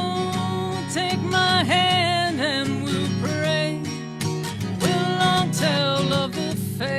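Strummed acoustic guitar accompanying a solo voice that sings long, held, wordless notes with small runs in a slow folk-country song.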